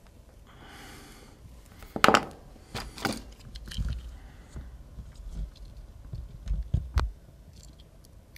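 Metal hand tools being handled: round-nose jeweler's pliers and a wire crimper clicking and knocking, with scattered sharp clicks, the loudest about two seconds in, after a short rustle near the start.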